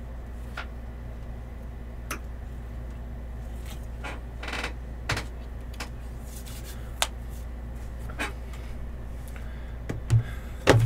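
Steady low electrical hum with scattered faint clicks, then two sharper knocks near the end as a cardboard hobby box of trading cards is lifted off the top of a stack of boxes.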